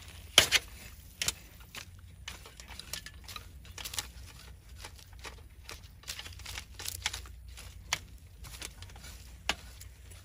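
Metal garden rake dragged through loose soil and compost, making a run of irregular scratchy scrapes and clicks as the tines catch bits of debris, with a louder sharp clatter about half a second in.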